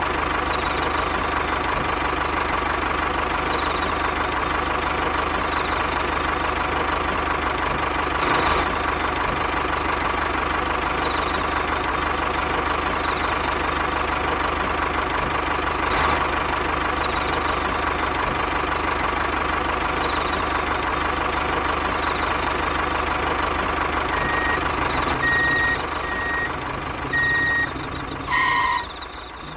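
Steady, even motor running as the DIY mini toy tractor drives with its trailer. Near the end come about four short, high beeps.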